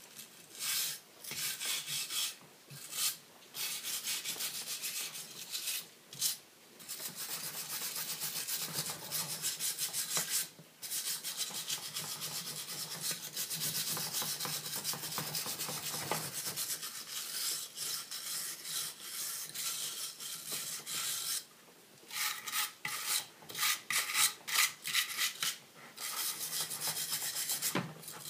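Hand wire brush scrubbing charred wood, back-and-forth strokes scraping the burnt surface off to bring out contrast in the grain. The strokes come in long runs with short pauses and turn quicker and choppier near the end.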